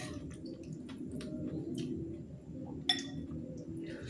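Metal fork and spoon clinking and scraping against a ceramic noodle bowl during eating, with a sharp clink about three seconds in. A recorded Islamic sermon plays faintly underneath.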